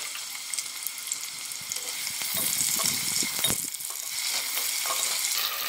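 Chopped onions sizzling in hot oil in a pressure cooker, a steady high hiss. From about two seconds in a wooden spatula stirs them, scraping against the pot, with a sharp tap partway through.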